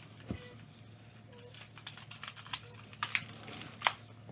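A string of sharp plastic clicks and knocks from a Nerf blaster being handled and fired at targets, the loudest near the end, with a few brief high squeaks in between.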